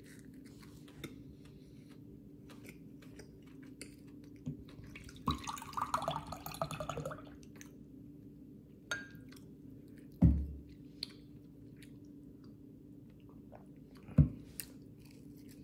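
A person chewing a mouthful of donut, with small wet mouth clicks over a steady low hum. There is a short muffled sound about halfway, and two sharp thumps later on, the loudest sounds here.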